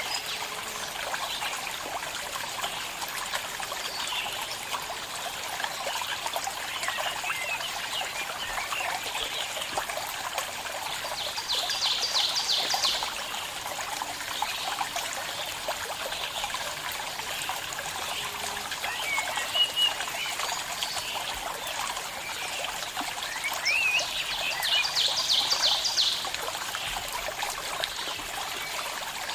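Small stream trickling and splashing steadily, with birds chirping. A rapid trill sounds twice, once near the middle and once near the end.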